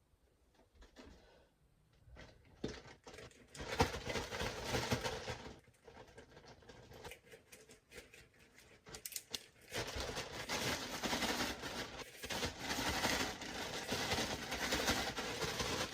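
A Ziploc bag holding cornmeal and seasonings being shaken to mix it: crinkling plastic and shifting dry meal, starting a couple of seconds in, easing off briefly in the middle, then going steadily again.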